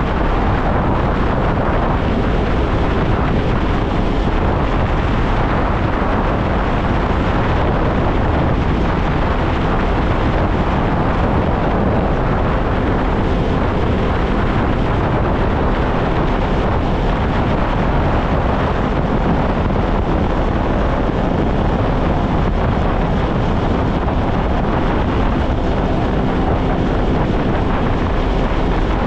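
Kawasaki Ultra 160 LX-S jet ski's naturally aspirated four-stroke engine running steadily under way, with heavy wind noise on the microphone.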